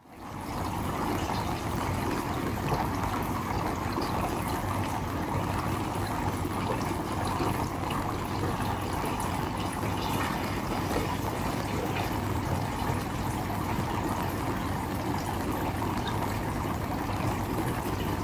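Water from a large aquarium's filter return splashing and trickling steadily into the tank, over a steady low hum.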